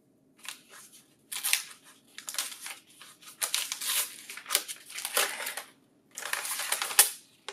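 Black protective packing wrapper being pulled and peeled off a laser printer's imaging (photoconductor drum) unit: crinkling and rustling in irregular bursts, with a short pause and a sharp click near the end.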